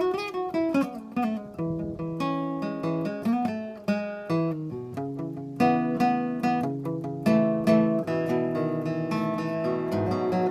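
Steel-string acoustic guitar playing chords, a steady run of picked and strummed notes that ring on.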